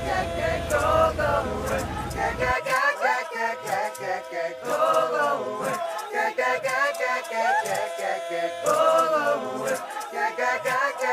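Choral singing in music, several voices holding sung lines. A low rumble underneath cuts off suddenly about two and a half seconds in.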